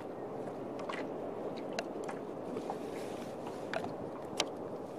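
Steady wash of sea water and wind around a plastic sit-on-top kayak riding at anchor, with a few light clicks and knocks scattered through it.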